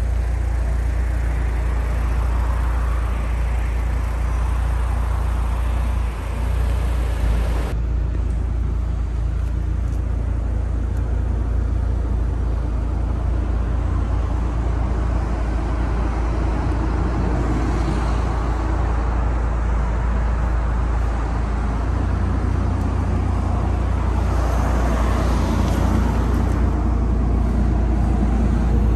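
Mitsubishi Lancer Evolution VI's 2.0-litre turbocharged 4G63 four-cylinder idling steadily, with a deep, even low rumble. After a cut about eight seconds in, it sounds duller, heard from inside the cabin.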